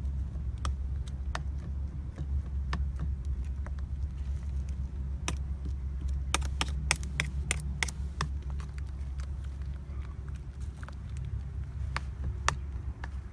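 Metal spoon stirring a wet minced-pork mixture in a ceramic bowl, clinking against the bowl in irregular sharp clicks, thickest about six to eight seconds in, over a steady low rumble.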